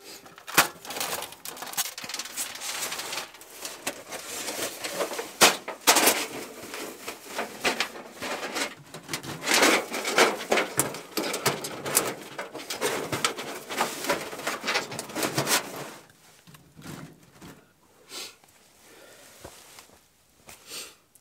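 Small sheet-metal camp wood stove and its stovepipe being handled and fitted together: a busy run of metal clinks, scrapes and knocks that dies down about three-quarters of the way in, leaving only a few faint sounds.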